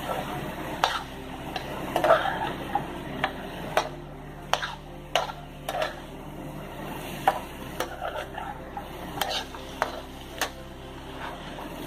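A slotted spatula stirring minced chicken and chopped onions frying in a metal pan, scraping and knocking against the pan at irregular intervals, over a low steady hum.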